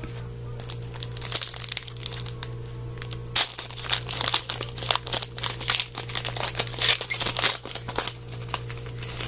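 Foil trading-card pack wrapper being torn open and crinkled, with irregular crackling that is thickest in the middle stretch. A steady low electrical hum sits underneath.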